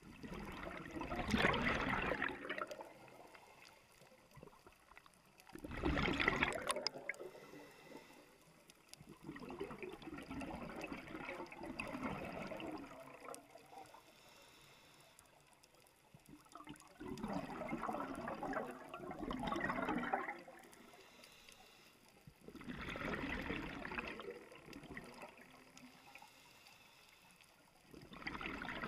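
Scuba diver breathing underwater through a regulator: rushes of hiss and gurgling exhaust bubbles, one every five to six seconds, with quiet between breaths.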